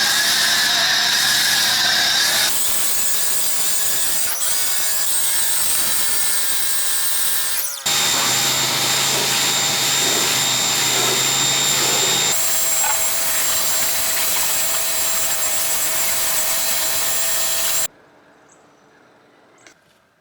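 Handheld mini electric blower running at full speed, a loud rush of air with a high-pitched motor whine whose pitch shifts between a few abruptly joined stretches, as the washed machine is blown dry. It cuts off suddenly near the end.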